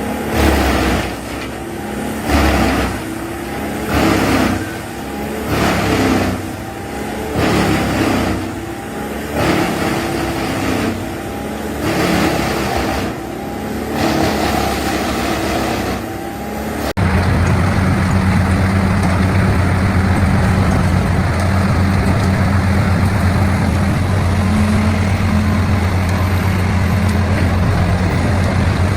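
Industrial wood-chipping machinery at work: repeated crunching bursts about once a second as wood is fed and chewed, over a running engine. About seventeen seconds in, the sound changes abruptly to a steady, loud machine engine drone with a deep hum.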